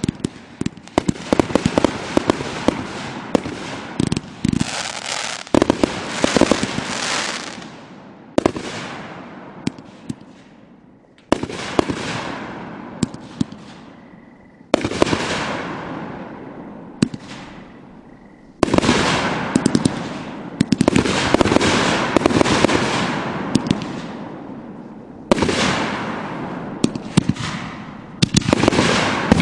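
Consumer aerial fireworks bursting overhead one after another, each break opening into dense crackling that fades over two or three seconds. A new burst comes every few seconds.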